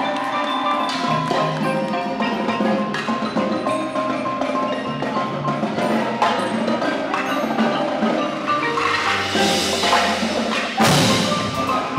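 Indoor percussion ensemble playing, with marimbas carrying a melody of quick mallet notes over the full ensemble. Near the end the cymbals build up and hit one loud crash.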